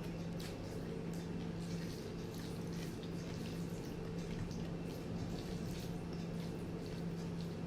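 Close-miked eating sounds: wet chewing, lip smacks and small mouth clicks from a person eating rice and kidney-bean curry, over a steady low hum.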